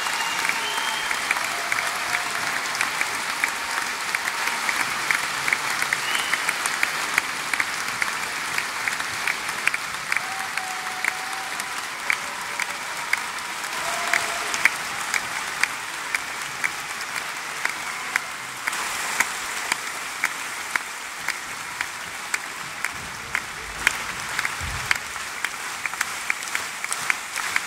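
Large theatre audience applauding. About halfway through, the clapping settles into a steady rhythm in unison.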